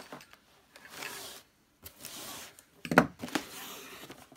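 Cardboard box being handled and eased open, with rubbing and sliding of card in short strokes. A few sharp knocks come just before three seconds in.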